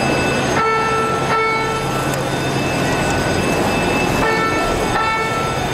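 A steady rushing noise with several electronic alarm tones at different pitches sounding together, cutting out and starting again about four seconds in.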